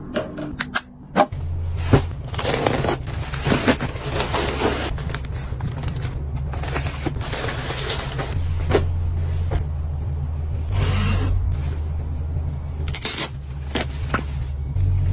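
Hands handling and unpacking things: knocks of plastic bottles being moved, then rustling of a frosted plastic zip bag and handling of a canvas bag, over a steady low hum.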